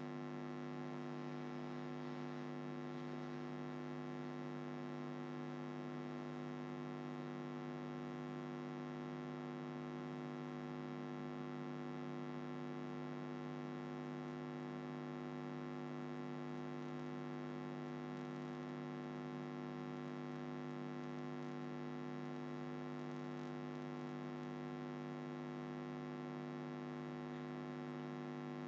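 Steady low electrical mains hum with a buzzy row of overtones, unchanging: interference picked up by the recording setup while nothing else is heard.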